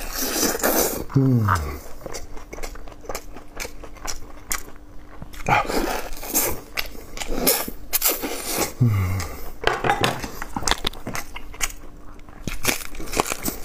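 A person eating braised ribs up close: wet chewing, smacking and gnawing on the meat and bone. Twice a short, low voice sound slides down in pitch, once about a second in and again near nine seconds.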